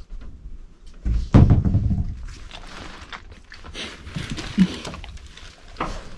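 A heavy thump about a second in, followed by rustling and scuffing handling noise, with another sharp knock near the end.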